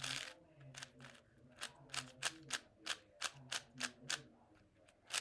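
Moyu MeiLong 4x4 speed cube being turned by hand fresh out of the box: a quick run of crunchy, crisp clicking turns, about three a second, with a short pause near the end.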